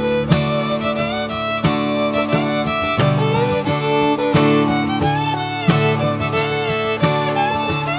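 Background music with a fiddle melody over strummed guitar, in a country or bluegrass style.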